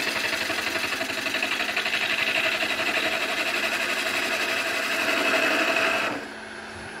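A turning tool cutting a spinning green magnolia log on a wood lathe, roughing it round, with a fast, even chatter. The cut stops about six seconds in, leaving the lathe's steady hum.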